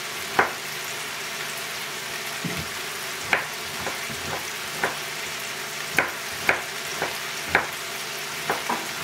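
Onion, mushrooms and peppers sizzling steadily in oil in a frying pan, with a kitchen knife knocking sharply on a wooden cutting board at uneven intervals as tomatoes are cut.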